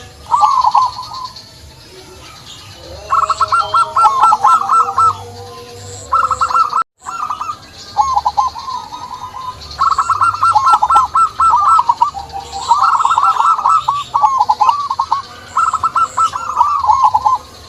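Zebra dove (perkutut) cooing: about seven phrases of quick, rolling, stuttering notes, one after another with short gaps. The sound drops out abruptly for an instant about seven seconds in.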